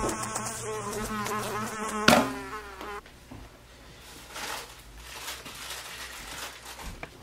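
A housefly buzzing with a wavering pitch, broken about two seconds in by a sharp thump. The buzzing dies away soon after, leaving only faint rustling.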